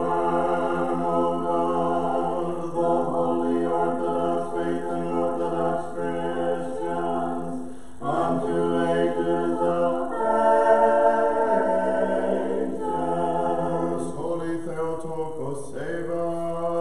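Orthodox liturgical chant sung a cappella by a small choir in harmony: sustained chords that change slowly over a steady low held note.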